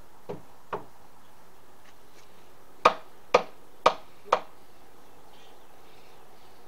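Hammer striking wood, as in nailing deck framing: two light taps, then four hard blows about half a second apart, and one more blow at the very end.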